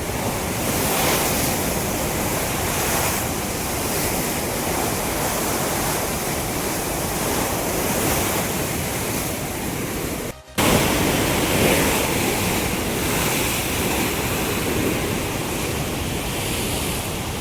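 Floodwater rushing through the fully opened gates of a dam: a steady, loud rush of water. The sound drops out for a moment about ten seconds in.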